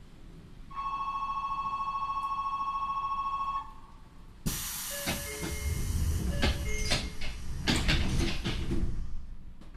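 An electric door-closing buzzer sounds steadily for about three seconds with a fast pulse. About a second later the train's air-operated sliding doors close: a sudden hiss of air with a series of knocks, thuds and brief squeals lasting about five seconds.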